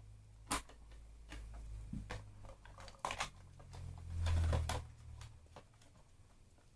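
Plastic clicks and rustling of a battery being fitted into an electric airsoft rifle, with a dull thump about four seconds in.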